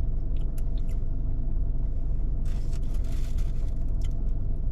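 Steady low rumble in the background, with a few light clicks and a short noisy slurp about two and a half seconds in as thick mango lassi is sipped.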